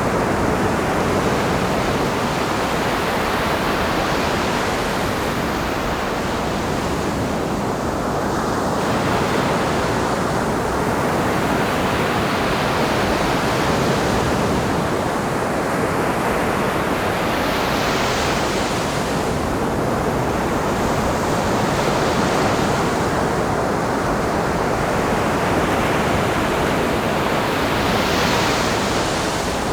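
Ocean surf: a steady wash of breaking waves, with a wave breaking and hissing up the beach every few seconds, loudest about eighteen seconds in and near the end. Some wind on the microphone.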